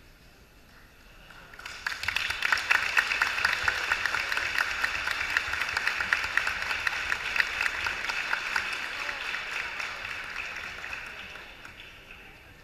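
A gymnasium crowd applauding, many hands clapping. It swells suddenly about two seconds in, holds, and fades away near the end.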